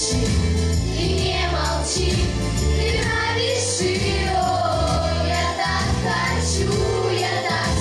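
A children's school class choir singing an autumn blues song in unison, over an instrumental accompaniment with a prominent bass line.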